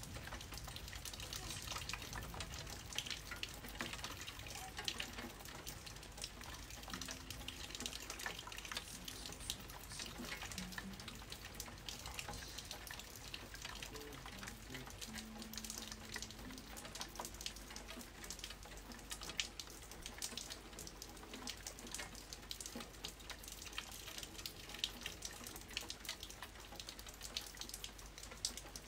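Rain falling during a thunderstorm: a steady hiss of rain with a dense patter of drops and drips close to the microphone.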